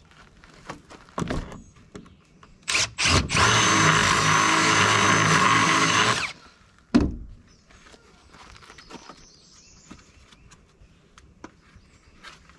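Cordless drill boring a hole through a plastic recovery (traction) board: two quick blips of the trigger, then about three seconds of steady drilling that stops abruptly. A single thump follows about a second later.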